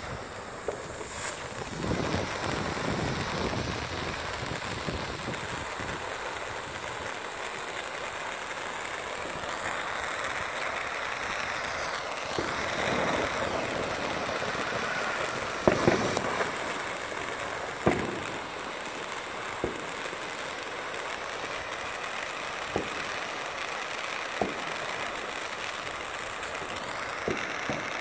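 Black Cat 'From the Heart' fountain firework spraying sparks with a steady hiss that builds up over the first couple of seconds as it catches. In the second half a few sharp pops and crackles stand out over the hiss.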